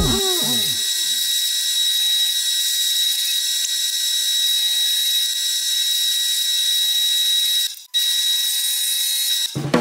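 Drill press running, sped up so it sounds like a steady high-pitched whine over hiss, with a brief break a little before the end.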